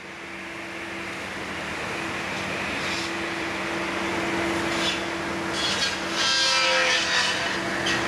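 Hi-rail tree trimming machine running with a steady engine hum that fades in, and short crackling bursts as its boom cuts through branches, the longest about six to seven seconds in.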